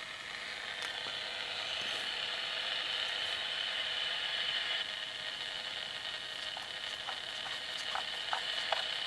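Static hiss from a homemade slug-tuned shortwave receiver with no fading compensation, heard as it is being tuned. The hiss swells and then dips a little about halfway through. In the last few seconds a few short clicks come through it.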